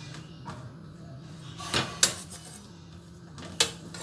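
Steel spoon pressing and smoothing a sticky sesame burfi mixture in a steel plate: a few soft scrapes and clinks of spoon against metal, the loudest about halfway through and another near the end.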